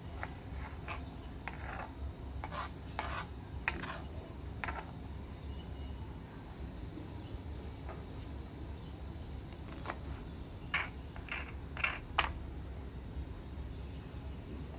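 A series of short scrapes and light taps from objects being handled, over a steady low hum.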